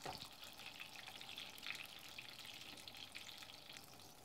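Faint, steady sizzling and light crackling of a whole turbot frying in hot oil in a frying pan.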